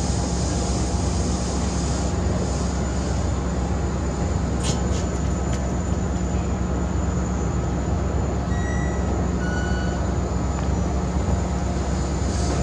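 Passenger train standing at the platform, giving off a steady low rumble and hum.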